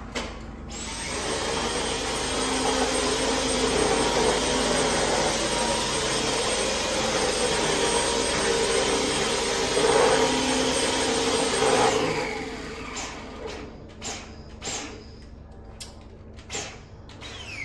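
Dyson V10 Animal cordless stick vacuum running steadily with a high whine, starting about a second in and cutting off after about twelve seconds. Several clicks and knocks follow as the vacuum is handled.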